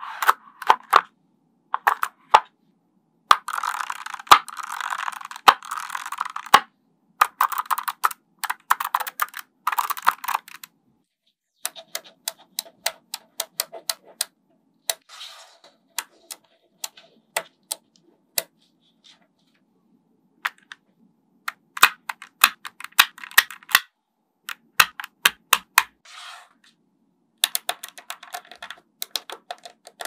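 Small magnetic metal balls clicking and snapping against each other as they are handled and pressed into rows. There are dense rattling runs of clicks in the first ten seconds, then sparser single clicks with a few quick clusters later on.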